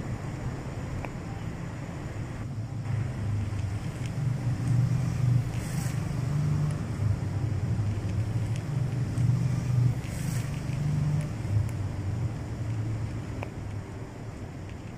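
Domestic cat purring while being scratched under the chin, a low steady rumble that grows louder a few seconds in.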